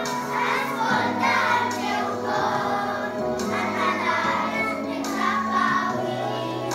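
A children's choir singing a song together over an instrumental accompaniment, whose bass notes change about a second in and again near the end.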